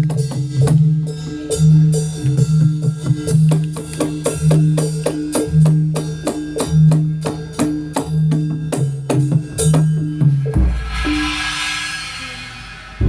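Jathilan accompaniment music played through a PA system: drums and pitched percussion striking an even beat about four to five times a second over sustained low notes. About ten and a half seconds in, the beat stops on a low boom and a cymbal-like crash that fades away.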